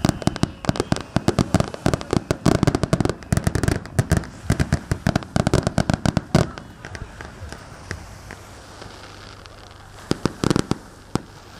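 Aerial fireworks going off in rapid volleys of sharp bangs for about six and a half seconds. Then quieter crackling, and another short cluster of bangs near the end.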